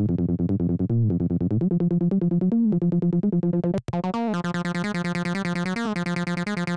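Electronic acid-style synthesizer music with a fast, repeating sequenced synth line. It cuts out for an instant about four seconds in, then returns brighter.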